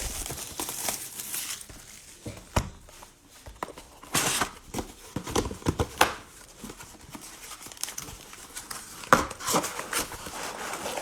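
Cellophane wrapping crinkling and tearing as a sealed cello box of trading-card packs is opened and emptied, with scattered light clicks and rustles.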